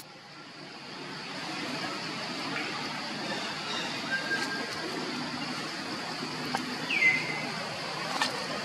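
Steady outdoor background hiss, with one short falling squeak about seven seconds in.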